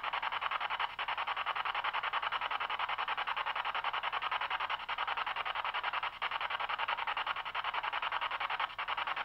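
Spirit box (ghost box) sweeping through radio stations: a steady rush of static chopped into fast, even pulses, many a second.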